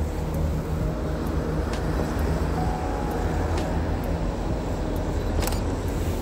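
Street ambience carried by a steady low engine hum of road traffic, with a few faint sharp clicks.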